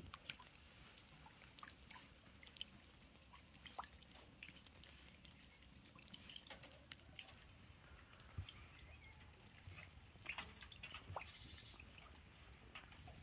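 Faint, irregular drips of rainwater falling after a shower, over quiet outdoor ambience.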